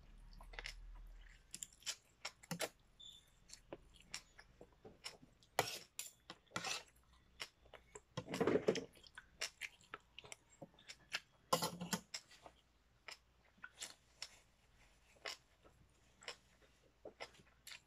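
A person chewing beef and rice: a run of short, wet mouth clicks and smacks, with a few louder ones about midway.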